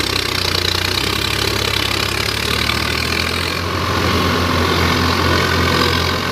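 Tractor diesel engine running steadily under load, hauling a stuck tractor out on a tow chain.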